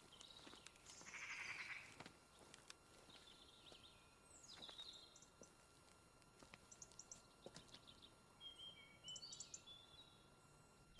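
Faint birds chirping and calling: short high notes and quick gliding whistles over quiet outdoor ambience.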